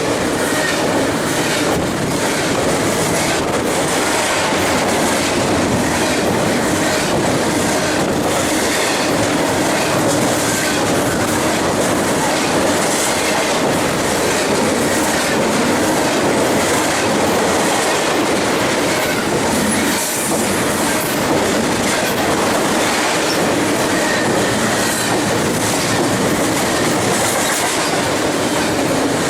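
BNSF double-stack container train's well cars rolling steadily past, their steel wheels clacking over the rail joints, with faint wheel squeal at times.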